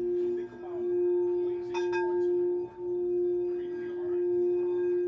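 A singing bowl sounding a steady low tone with faint higher overtones, dipping briefly twice, and struck once about two seconds in, adding a brighter ring.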